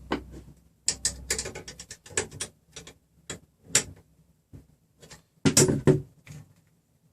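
Irregular clicks and short metallic rattles of small printer-frame hardware being handled and adjusted by hand. The loudest rattle comes about five and a half seconds in.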